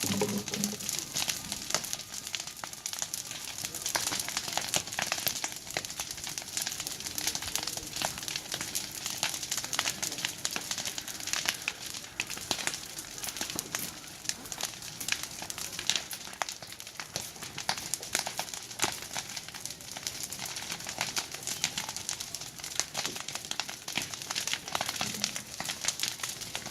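Large fire burning with dense, continuous crackling and popping.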